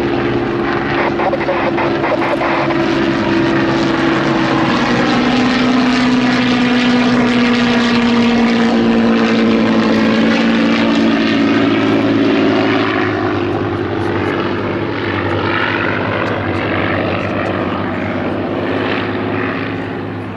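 Two Hawker Nimrod biplanes and a Hawker Sea Hurricane flying past overhead in formation, their Rolls-Royce V12 piston engines (Kestrels in the Nimrods, a Merlin in the Hurricane) running together as several engine notes. The notes drop in pitch about four to five seconds in as the aircraft pass, and the sound fades slowly toward the end.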